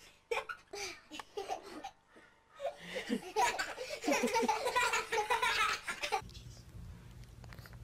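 People laughing: short bursts at first, building about three seconds in to loud, hearty laughter that stops abruptly around six seconds, where a low steady hum takes over.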